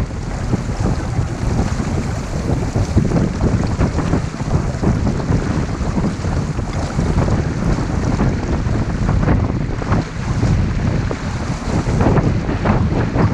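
Wind buffeting the microphone over the rush and splash of water along the hull of a sailing yacht under way, a steady noise with irregular splashes.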